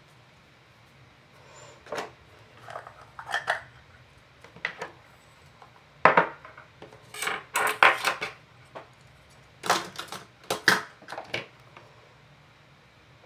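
Small craft pots, a glass jar and a metal tin, being opened and their lids set down on a tabletop: a run of sharp clicks, light clinks and scrapes of metal and glass, the loudest near the middle.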